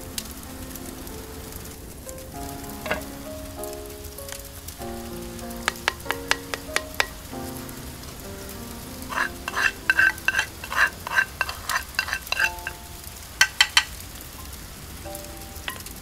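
A ladle stirring in a terracotta clay pot, knocking against its sides in quick runs of ringing clinks, loudest in a long run about halfway through. Soft background music with a slow melody plays underneath.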